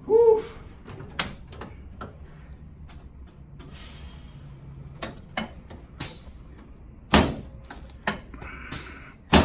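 About ten sharp knocks and clunks during a chiropractic adjustment on the treatment table, spread unevenly, with the loudest just after the start, about seven seconds in and at the very end.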